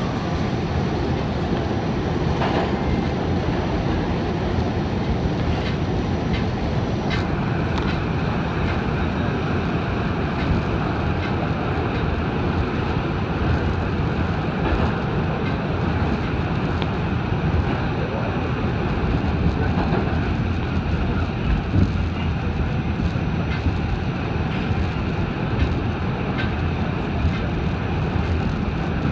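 R46 subway train running through a tunnel: a steady, loud rumble of wheels on rail and the car's running gear. A faint steady high whine joins about seven seconds in.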